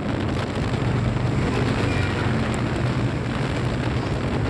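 Vehicle travelling along a road: a steady low engine drone with road and wind noise.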